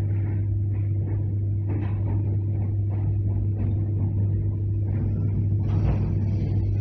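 Interior of an ER9M AC electric multiple-unit car under way: a steady low hum over the rumble of the running gear, with light rattles and clicks. The noise grows louder and hissier about six seconds in.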